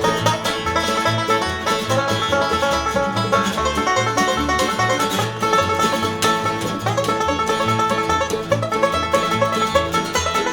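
Bluegrass instrumental break between verses: banjo picking over guitar and a bass line on a steady beat.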